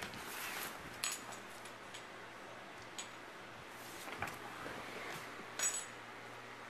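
Corgi puppy playing with her bone: soft rustling broken by three short metallic clinks, about a second in, at three seconds, and the loudest near the end.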